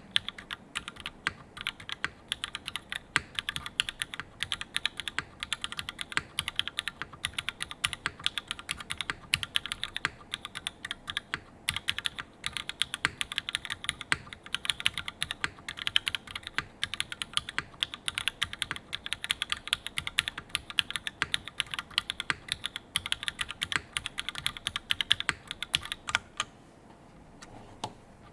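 Custom mechanical keyboard with Cherry MX Black linear switches in glass-top housings, GMK keycaps and a top-mounted carbon-fibre plate, typed on quickly and continuously in a dense clatter of keystrokes. The typing stops about a second and a half before the end.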